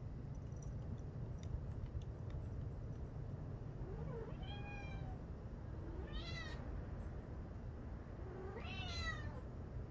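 A cat meowing three times, each call rising and then falling in pitch, over a steady low hum.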